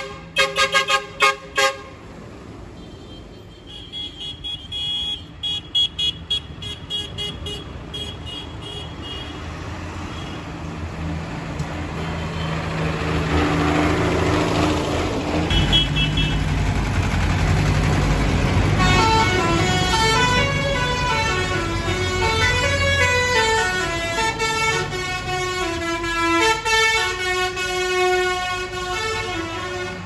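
Parade of tractors driving past, their diesel engines running and growing louder as they pass, with repeated horn toots early on. From about two-thirds of the way through, a stepping tune of pitched notes plays over the engines.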